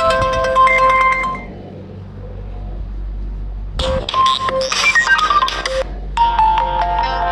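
Short electronic ringtone melodies from an itel A36 mobile phone, different tunes one after another. The first stops about a second and a half in. After a pause of about two seconds with a low steady hum, a new tune begins, with a falling run of notes, and it changes to another melody about six seconds in.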